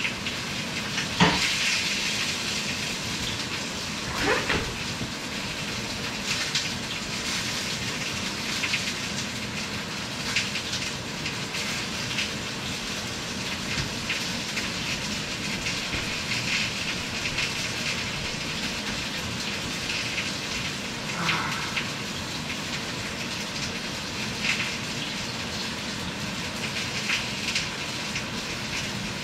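Steady hissing noise with a faint low hum underneath, broken by a few short knocks: about a second in, about four seconds in, and once more past the middle.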